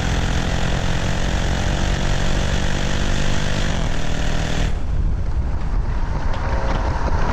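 2019 Jeep Trackhawk's supercharged V8 running hard at a steady pitch, heard from inside the cabin along with loud wind and road noise. About four and a half seconds in the noise drops suddenly as the throttle is lifted for braking, leaving a lower, rougher rumble.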